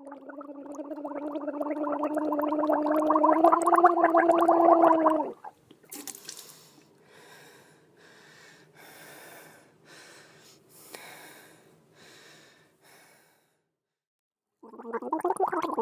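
A gargling sound with a steady low pitch and a rapid flutter, growing louder and cutting off suddenly about five seconds in. It is followed by softer, irregular rushing pulses that stop after about thirteen seconds, and then the gargling starts again near the end.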